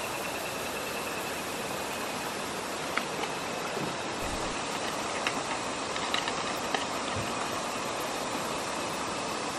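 Steady rushing outdoor background noise, with a few light footsteps on the dirt path a few seconds in.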